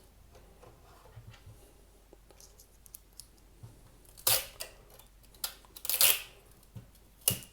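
Plastic parts of a Cisco Meraki MR46 access point being handled and scraped: faint light clicks, then two louder scraping sounds about four and six seconds in, and a short one near the end.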